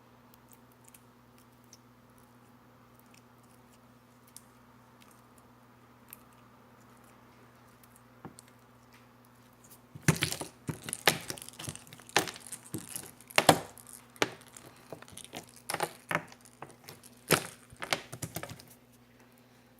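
Jiggly slime being handled. After a quiet stretch with a faint steady hum, a run of sharp clicks and pops starts about halfway through and lasts about eight seconds.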